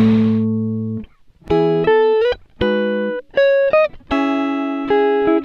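Background music: a plucked guitar playing a picked melody, its notes and chords ringing out and fading with short gaps between them, with a couple of sliding notes.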